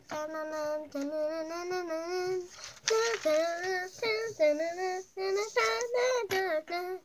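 A child singing a tune, holding long notes that waver in pitch at first, then moving through shorter notes.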